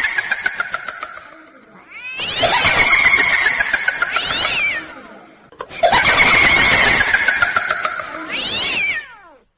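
Horror ghost sound effect: a fading wail, then two long, cat-like wailing screeches, each sliding slowly down in pitch and ending in a quick swoop up and down.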